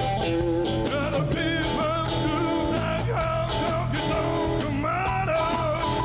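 A live rock band playing: electric guitar, drums and a singing voice, with wavering, sustained notes over a steady low end.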